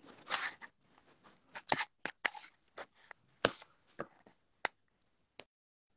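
Irregular fingertip taps and handling clicks on a smartphone touchscreen, picked up loudly by the recording phone's own microphone: about a dozen short sharp clicks spread unevenly. The audio cuts out completely for about half a second near the end.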